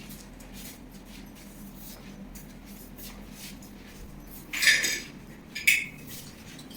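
Two short clattering clinks of hard objects, the first about four and a half seconds in and the second about a second later, over quiet room noise.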